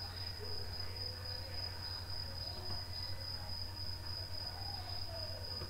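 A steady high-pitched whine with a low hum beneath it, continuous background noise with no words spoken.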